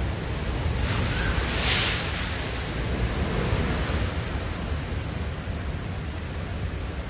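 Heavy ground-swell waves crashing against a harbour breakwater and sea wall: a steady wash of breaking surf, with a louder hiss of spray about a second and a half in.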